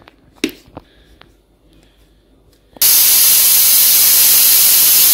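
Prestige Deluxe pressure cooker whistling: the weight lifts and steam vents in a loud, steady hiss that starts suddenly about three seconds in. This whistle marks that the cooker has come up to full pressure.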